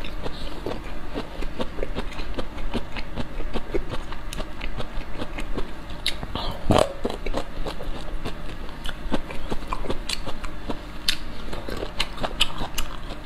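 Close-miked eating of pickled bamboo shoots: biting and chewing, a steady run of sharp crunching clicks, with the loudest bite about seven seconds in.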